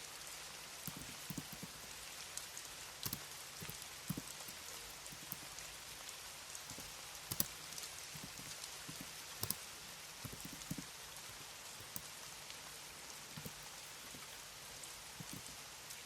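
Soft, unhurried computer keyboard keystrokes, scattered clicks about one or two a second, over a steady rain-like hiss of background ambience.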